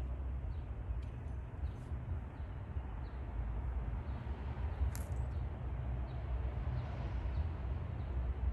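Outdoor street ambience: a steady low rumble with faint, short bird chirps scattered through it, and a single sharp click about five seconds in.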